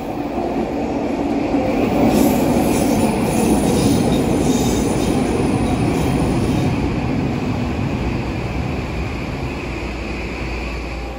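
Vancouver SkyTrain Mark III train pulling into the platform: the rumble of its wheels on the track builds as the cars slide past, with high wheel squeal about two seconds in. The sound then eases off gradually as the train slows.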